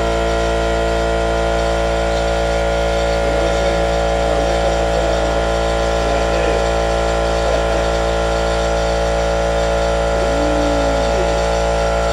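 Loud, steady machine hum made of many layered even tones over a low rumble, like an electric motor running without change; faint wavering voice or mouth sounds lie underneath now and then.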